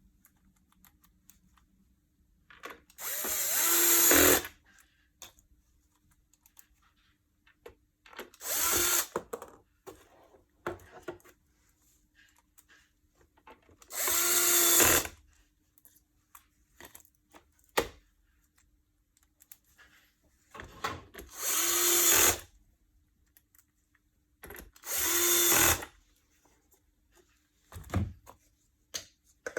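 Cordless power drill or electric screwdriver run in about five short bursts of a second or two each, each one spinning up to a whine, with small clicks and handling noises between them.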